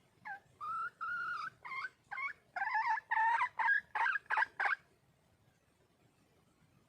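Red junglefowl hen calling to attract a male: a run of about eleven short, pitched clucking calls over some four seconds, coming quicker toward the end.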